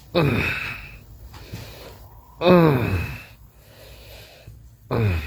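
A person snoring three times, about two and a half seconds apart, each snore a loud voiced sound that slides down in pitch.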